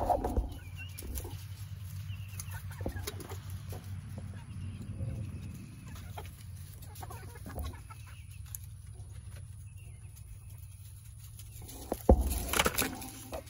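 Domestic hens clucking softly at intervals, with a brief louder rustle near the end.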